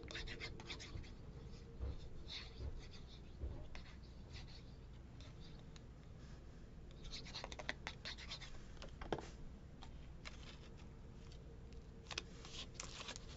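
Faint scratching and rustling of paper and card being handled and pressed down on corrugated cardboard, in short scattered scrapes, busier about halfway through and near the end.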